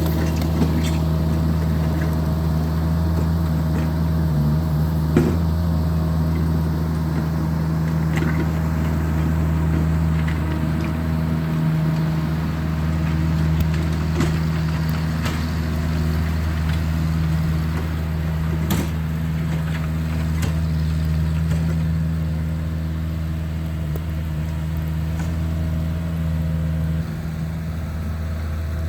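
Engine of a Vermeer tracked mini loader running steadily at a constant speed while it pushes snow with a snow box, with a few brief knocks.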